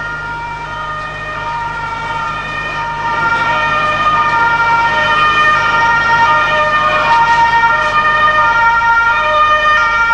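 Two-tone police siren wailing steadily, switching back and forth between a high and a low note about once a second. It grows louder about three seconds in.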